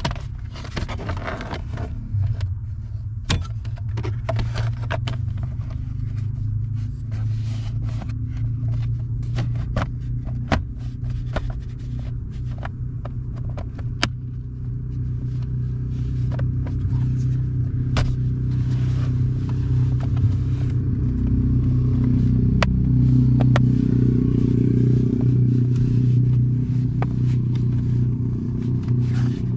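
Plastic trim cover and its screws being handled and fitted, with scattered sharp clicks and light knocks, over a steady low hum that grows a little louder in the second half.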